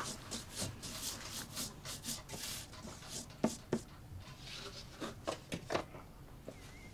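Hands sliding and handling thin wooden dulcimer panels on a workbench: wood rubbing and scraping, with a few sharper light knocks about halfway through.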